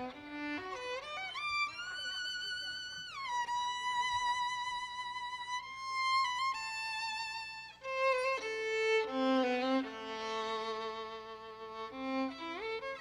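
Solo violin playing a slow, lyrical melody. Held notes carry vibrato, and the player slides up and down between notes, with a quick upward slide near the end.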